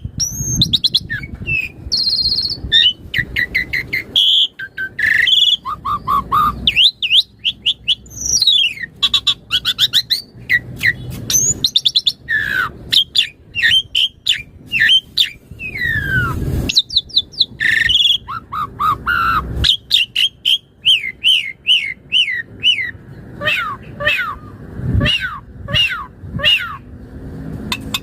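Asian pied starling (jalak suren) singing in full voice, running through its varied repertoire of learned phrases. The song is a dense stream of clear whistles, rising and falling slurred notes, rapid chirps and clicking notes, with only brief pauses.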